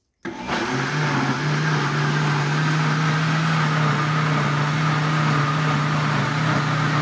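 Red countertop blender switching on and running at a steady speed, churning a liquid mix of grape juice, condensed milk and cream, with a steady motor hum under the whirring of the blades.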